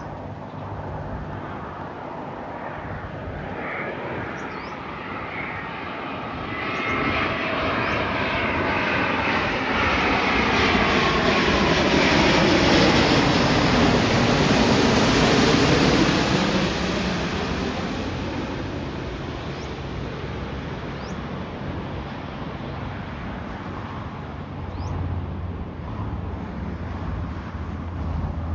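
Jet airliner passing by, its engine tones gliding down in pitch as it goes past. It swells to its loudest about halfway through, then fades away.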